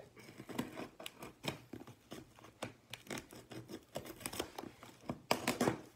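Packing tape on a cardboard box being scraped, punctured and slit with a hex tool: irregular scratching and clicking, with a louder stretch of tearing near the end.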